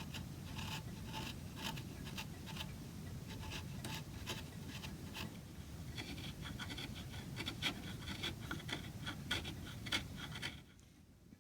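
Scratching and rubbing with many sharp clicks, which stops about ten and a half seconds in. After that, faint regular ticking of a clock, about two ticks a second.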